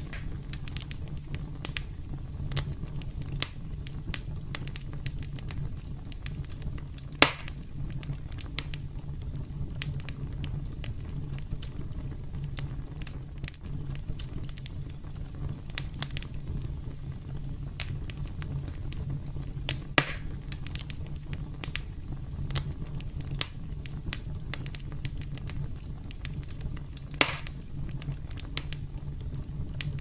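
Wood campfire crackling: many scattered pops and snaps over a steady low rumble of the flames, with three louder snaps spread through.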